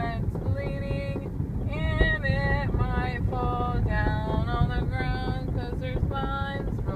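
A woman singing a melody of held notes that slide up and down, over the steady low rumble of road noise inside a moving car.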